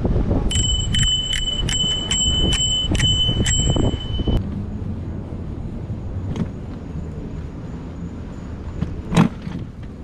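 Handlebar bicycle bell rung about eight times in quick succession over some four seconds, each strike ringing on at a steady pitch. Then rolling noise and wind on the microphone, with a single sharp knock near the end.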